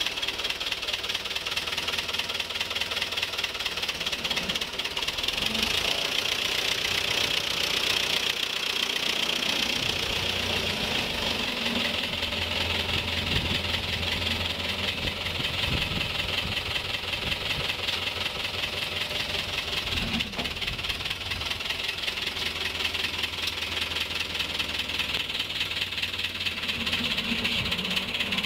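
Fordson Super Major tractor's four-cylinder diesel engine running with a fast, even knocking beat as the tractor drives off.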